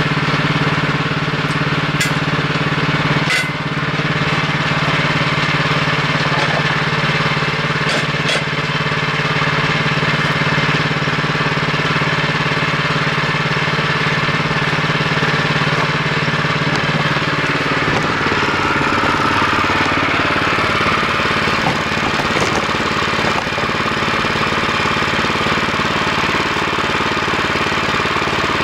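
Small gasoline engine of a homemade kinetic log splitter running steadily, with a few sharp metallic clicks in the first third as the log-lift mechanism is handled. About two-thirds through, the engine note dips and then recovers.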